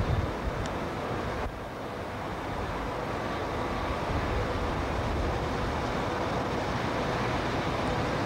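Steady low rumble of a ferry's machinery heard from the open deck, with a faint continuous hum. The level dips briefly about a second and a half in.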